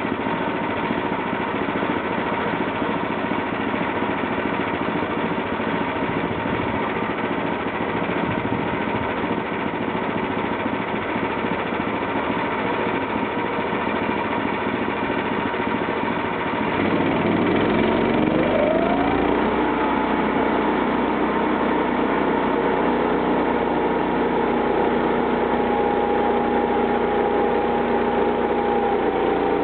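Homemade band sawmill driven by a 13 HP gasoline engine running steadily under way. About two-thirds of the way through, the engine's pitch rises quickly and then holds steady at the higher speed.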